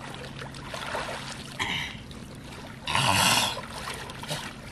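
Pond water splashing and sloshing as a person wades and hauls a wooden rope-strung cot out of the water. There is a short splash about two seconds in and a longer, louder one around three seconds.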